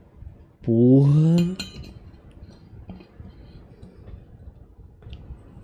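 Faint clinks and handling of a stainless-steel water bottle, with a few light ticks. A man's loud, drawn-out exclamation about a second in is the loudest sound.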